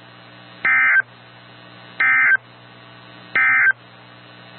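Emergency Alert System SAME end-of-message code from NOAA Weather Radio: three short, identical bursts of digital data tone about a second apart, marking the end of the tornado warning broadcast. A faint steady radio hum and hiss lies underneath.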